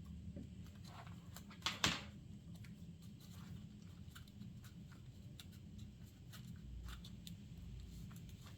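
Faint clicks and taps of a small metal pocket tool being handled as its handcuff shim is got out, with one louder sharp click about two seconds in, over a low steady hum.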